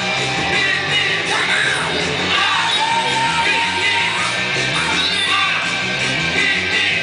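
Loud show music with a singing voice, running continuously.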